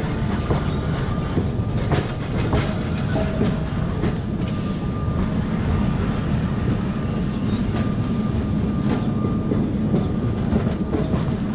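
Vintage wooden electric tram running along its street track: a steady rumble of wheels on rails with irregular clicks and clacks, and a faint steady whine through much of it.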